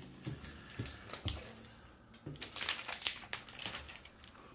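Clear plastic protective sleeve crinkling and rustling as a laptop is slid out of it, with a few light knocks from handling the laptop on the table.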